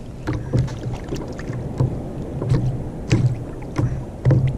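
Small waves slapping against a plastic sit-on-top kayak hull in irregular low thumps, about one every half second to second, each with a short splashy crack, over a light rumble of wind.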